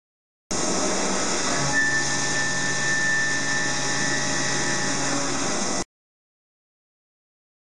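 Solid-carbide 16 mm four-flute end mill full-slot milling 16MnCr5 steel at 16 mm depth on a Mikron HPM 600 HD machining centre, held in a shrink-fit chuck: steady cutting noise that starts abruptly about half a second in and cuts off abruptly near six seconds. A thin high whine rides over the cut for a few seconds in the middle.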